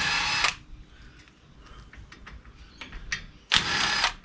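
Two short bursts from a rattle gun (impact wrench) loosening hub bolts, one at the start and one about three and a half seconds in, with small metallic clicks of tool handling between.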